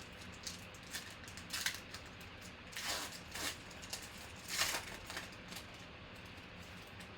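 Trading-card pack wrapper being torn open and the cards handled: a series of short crinkling, ripping noises, the loudest near the middle.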